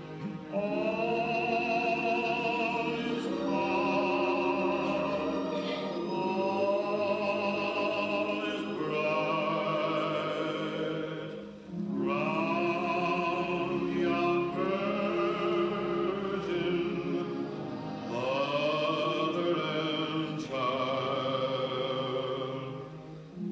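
Recorded classical vocal music played over a PA loudspeaker: singing with strong vibrato in long held notes, with a brief pause between phrases about twelve seconds in.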